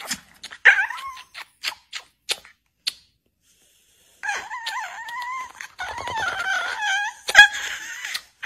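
Chihuahua howling: a few short yips and whines, then after a brief pause one long, wavering howl of about four seconds, broken by a sharp click near the end.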